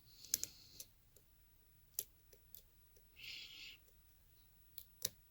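Faint metallic clicks and a brief scrape of a lock pick probing the pins of a Yale pin-tumbler lock fitted with security pins, one pin at a time. Half a dozen sharp clicks, with a short rasp of the pick about three seconds in.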